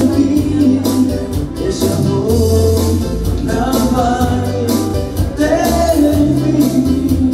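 A man singing into a microphone over amplified instrumental backing with a steady bass line and a beat.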